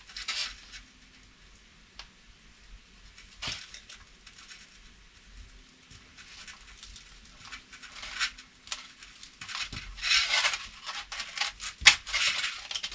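Hands handling a foam model-aeroplane wing, pressing its freshly hot-glued centre joint: scattered soft rustles and light clicks of foam and fingers, busier near the end with one sharp click about twelve seconds in.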